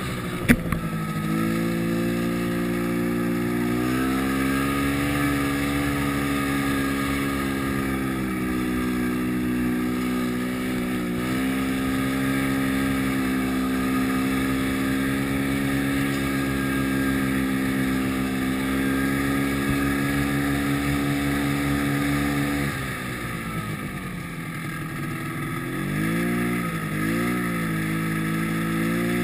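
Yamaha snowmobile engine running at a steady pitch as the sled rides through deep powder. A little over two-thirds of the way through it drops to a lower pitch, revs up and down twice, then picks up again near the end. A single sharp knock about half a second in.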